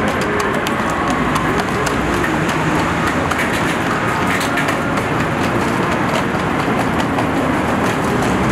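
Busy pedestrian ambience: many footsteps clicking on pavement over a steady hum of city traffic.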